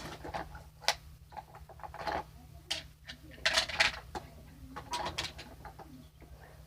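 Scattered knocks, clicks and rustles of household items being picked up and set down, over a steady low hum.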